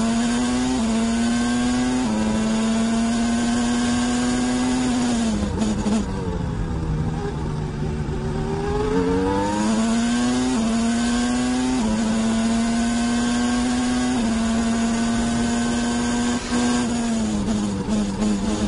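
Williams FW16's Renault V10 Formula One engine, heard through the car's on-board camera, running at high revs with small steps in pitch at the gear changes. About five seconds in the note falls away for a few seconds, then climbs back up through the gears, and it dips and wavers again near the end.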